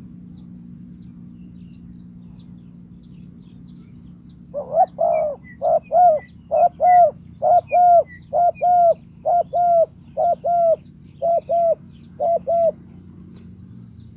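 Decoy spotted dove cooing in a quick run of about fifteen short, even coos, roughly two a second, starting about four and a half seconds in.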